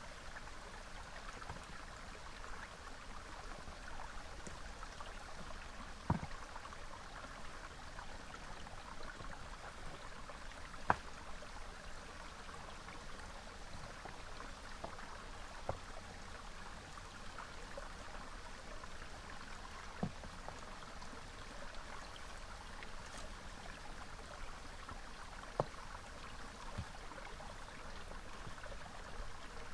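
Small river flowing steadily, a rushing water sound, with about five short sharp knocks or clicks spread a few seconds apart; the loudest comes about eleven seconds in.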